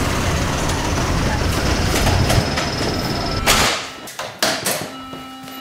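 Railway rolling noise from the marshalling yard, an even rumble with a faint high squeal running through it. About three and a half seconds in it cuts off to a quieter signal-box room, where a hand-worked mechanical lever frame gives several sharp clacks as its levers are thrown.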